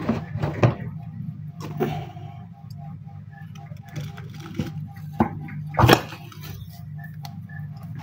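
Hermetic refrigerator compressor being handled and lifted off its plastic mounting base: a few sharp knocks and clunks of the metal housing and feet, the loudest about three quarters of the way through.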